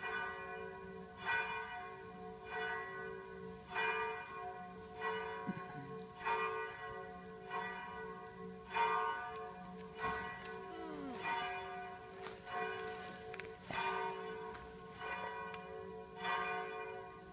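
A single church bell tolling, struck about once every one and a quarter seconds, each stroke ringing on into the next so that the bell's low tone never dies away.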